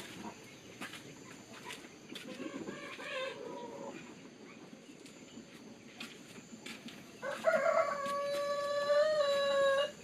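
Rooster crowing twice: a fainter crow a few seconds in, then a loud, long crow near the end that cuts off sharply. Faint scattered taps run underneath.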